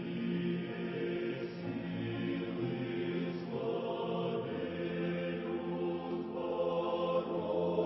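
A choir singing a slow Christian hymn in long, held chords.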